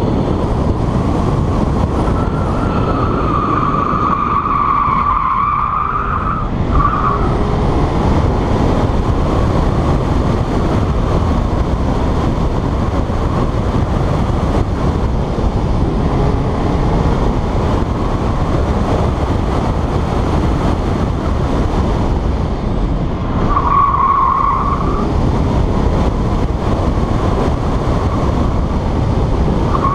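Car driving hard through an autocross course, its engine and wind on an outside-mounted camera's microphone making a steady rushing noise. The tires squeal through a corner for about four seconds a few seconds in, and again for about two seconds about three-quarters of the way through.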